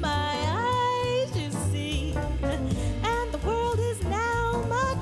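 Background music: a song with a sung melody over guitar accompaniment.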